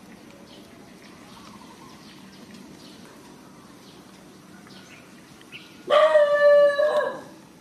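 A young macaque cries out about six seconds in: one loud, steady-pitched wail lasting about a second that breaks into a shorter second part. Faint chirping runs underneath before it.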